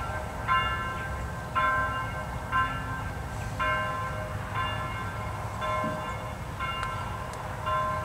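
Church bells ringing, about one strike a second, each strike ringing on until the next, over a low steady rumble.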